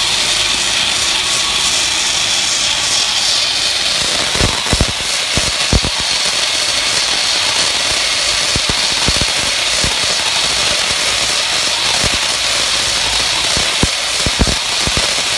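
Furimach semi-automatic gum tape slitting and rewinding machine running on a test: a loud, steady high hiss as the tape winds onto the rolls, with scattered low thumps from about four seconds in.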